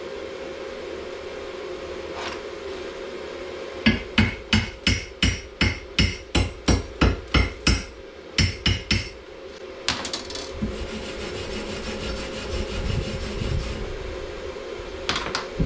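A welding chipping hammer rapping about seventeen times in quick succession, roughly three strikes a second, then a few seconds of scraping: slag being knocked and cleaned off a freshly stick-welded seam.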